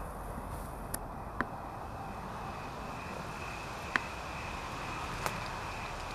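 Quiet night-time ambience in brush: a steady hiss with a continuous thin high-pitched tone. Four small clicks or twig snaps come at irregular spacing, the sharpest about four seconds in.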